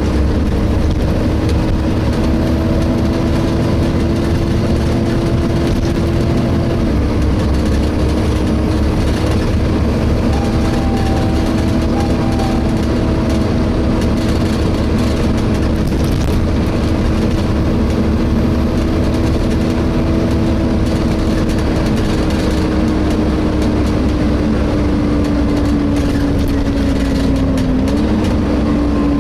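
Volvo B7TL double-decker bus heard from on board, its engine and hoover-like cooling fan running with a low rumble and a strong steady whine. The whine holds one pitch, steps slightly about seven seconds in and dips a little near the end.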